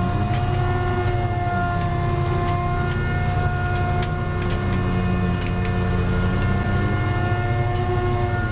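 Fishing boat's winch machinery running: a steady low throb with several whining tones that shift slightly in pitch, and a few faint clicks.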